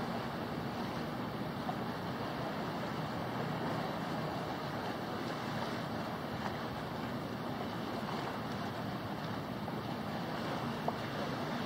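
Steady wash of wind and lapping lake water, with one small click near the end.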